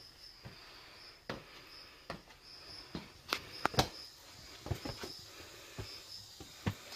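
Footsteps climbing rough stone steps: irregular scuffs and taps of shoes on stone, with two sharper clicks a little past three seconds in. A faint high chirping repeats steadily in the background.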